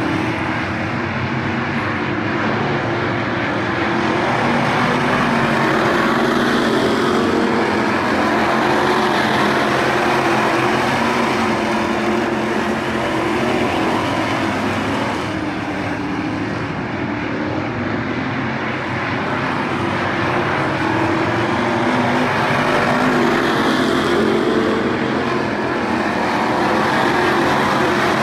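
A pack of WISSOTA Midwest Modified dirt-track race cars running at racing speed, their V8 engines droning together without a break. The sound swells as the field comes past, about a quarter of the way in and again near the end, and eases in between.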